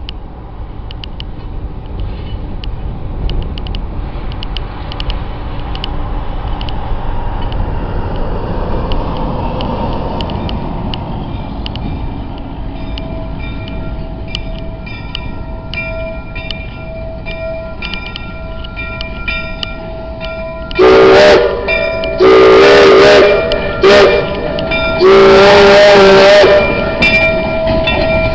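Polson Logging #70, a Baldwin Mikado steam locomotive, approaching with a rising rumble, then blowing its whistle very loudly in the grade-crossing signal near the end: long, long, short, long.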